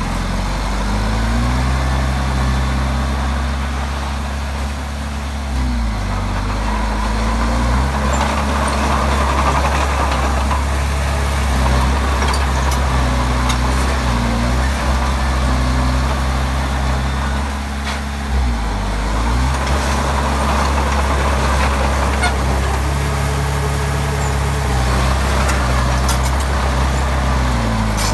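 Komatsu D20P bulldozer's diesel engine working under changing load, its note dipping and recovering three times as it takes and sheds load. A rougher mechanical noise swells twice.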